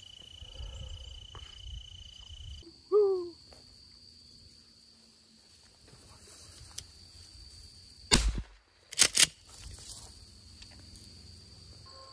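Shotgun shots: one shot, then about a second later two more in quick succession, over a steady high drone of insects.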